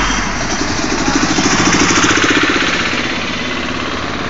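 A motor vehicle's engine running with a fast, even knocking beat, swelling to a peak about halfway through and then fading as it goes by.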